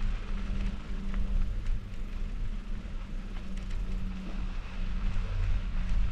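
Riding noise from a mountain bike on the move: wind rumbling on the camera's microphone over tyre noise, with a steady low hum and a few faint clicks.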